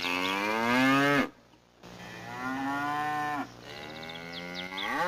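Cows mooing: three long moos one after another, the last rising in pitch near the end.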